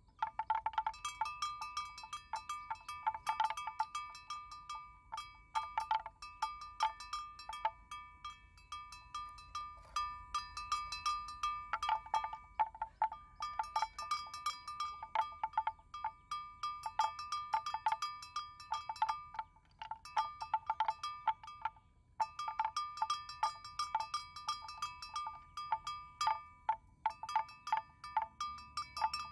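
A bell hung on a water buffalo's neck, clanking irregularly as the animal moves its head. The strokes come in quick runs with short pauses, each ringing briefly on a bright metallic tone.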